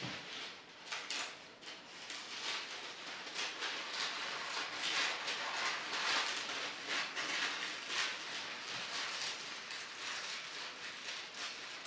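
A sheet of stiff tracing paper being cut along its length, the paper rustling with many small dry crackles as the blade works through it.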